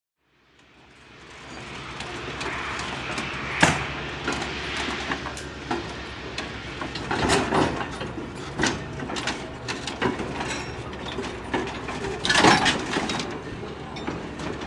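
Railroad train moving, with a steady low rumble and many sharp metallic clanks and knocks. The sound fades in over the first two seconds. A loud clank comes about three and a half seconds in, and a burst of clanks near the end.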